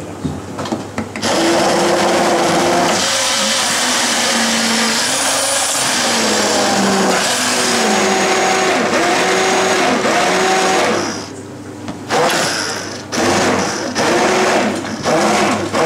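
Handheld immersion blender running in an aluminium saucepan, puréeing cooked pumpkin and potato into a thick cream. Its motor pitch wavers as it works the mixture, and after a short pause near the end it runs again in a few short bursts.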